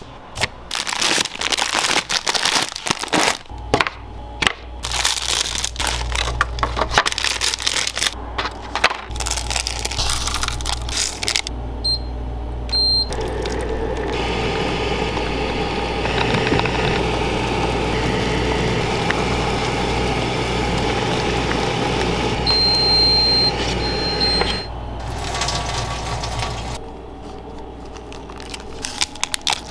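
Rapid clicks and clatter, then a machine beeps twice and hot water pours steadily into a bowl of dry instant ramen noodles for about ten seconds. Two more beeps sound near the end of the pour.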